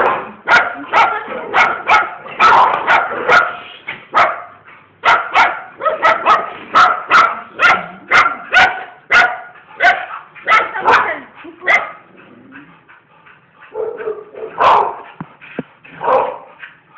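Bull terriers barking in a fast, steady run, about two barks a second. The barking thins out about twelve seconds in, and a few more barks come near the end.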